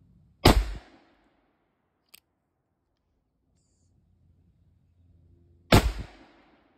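Two shots from a Pietta replica 1860 Colt Army .44 cap-and-ball revolver loaded with 30-grain Pyrodex pellets and lead round balls, about five seconds apart, each ringing out for about half a second. A brief click falls between the shots.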